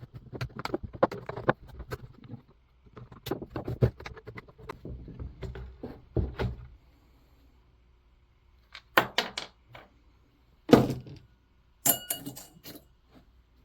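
Hand tools and chainsaw parts handled on a workbench while a chainsaw's starter cover is taken off: a run of small clicks and rattles, then after a quiet moment several sharp knocks and clinks, one with a brief metallic ring.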